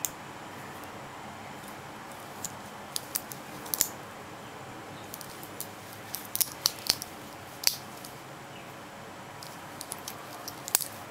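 Stainless steel watch bracelet links and clasp clicking and clinking as the watch is handled, scattered sharp clicks, some in quick clusters, over a steady low hiss.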